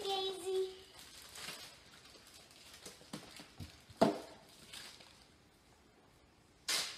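Clear plastic zipper bags rustling and crinkling as plastic food containers are handled, with one sharp knock about four seconds in, like a container set down on the stone countertop, and a short swish of plastic near the end.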